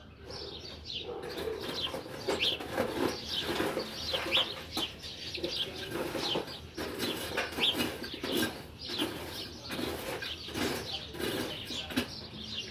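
Small birds chirping repeatedly, short falling calls over irregular rustling and clicking.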